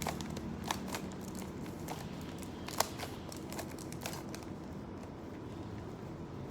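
Plastic Rubik's cube being turned by hand: a scattered handful of sharp clicks as its layers snap round, over steady background noise.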